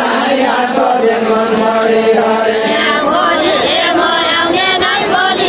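A group of voices singing a Nepali Deuda folk song: a long held note, then several voices overlapping from about three seconds in.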